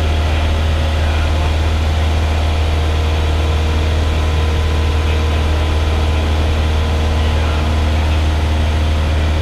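Steady drone of a light aircraft's piston engine and propeller in flight, heard inside the cockpit: a strong low hum with steady tones above it that do not change.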